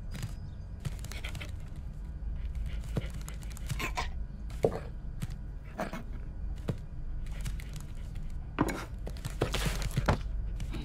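Irregular scrapes, knocks and rustles over a steady low hum: a cartoon dog's pawing and sniffing under a cabinet, with the louder knocks coming about two-thirds of the way in.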